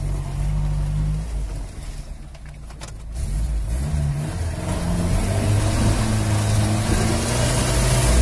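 Off-road vehicle's engine heard from inside the cab while driving: it eases off about two seconds in, with a few clicks, then picks up and runs louder under load toward the end.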